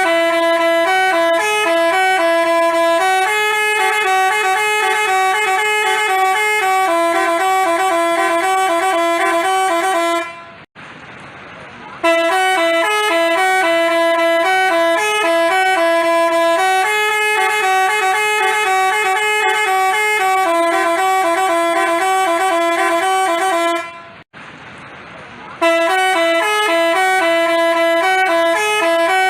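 Multi-tone 'telolet basuri' bus horn playing its stepping two-part melody. The tune runs through twice with a short break after each and starts again near the end.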